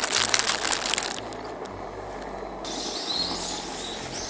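A plastic salad bag crinkling and leaves rustling as greens are shaken out onto a plate, loudest in the first second. From a little past halfway, small birds chirp repeatedly.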